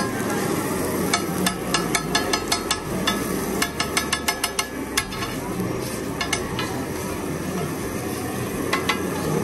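A metal spatula taps and scrapes against a large flat iron tawa, chopping and tossing onions, tomatoes and chillies for egg bhurji. The taps come in quick runs of about four or five a second for the first half, then a few more near the middle and at the end, over a steady background noise.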